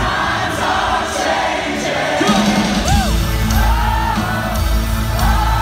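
Live rock band playing loudly with singing, heard from within the arena crowd.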